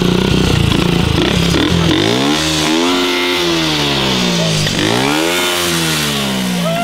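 Small single-cylinder Honda motorcycle engine running just after being kick-started. It runs unevenly at first, then is revved up and let back down twice, the pitch rising and falling each time.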